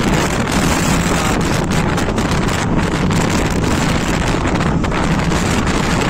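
Wind rushing over the microphone of a motorcycle moving at road speed, over the steady drone of the engine and tyres.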